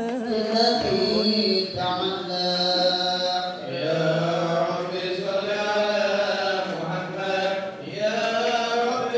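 A male voice chanting an Arabic Maulid praise hymn to the Prophet, drawing out long melismatic notes that bend slowly up and down, in three or four phrases with short breaks for breath.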